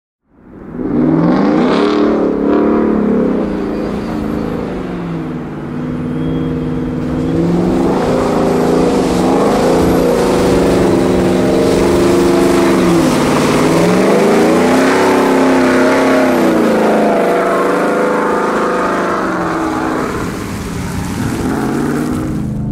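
V8 engine of a Ford F-150 Raptor being revved hard as the truck is driven through mud, its exhaust note rising and falling in pitch several times.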